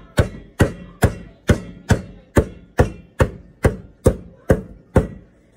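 Metal meat tenderizer mallet pounding raw ribeye steak on a cutting board to tenderize it: about a dozen even blows, a little over two a second, stopping near the end.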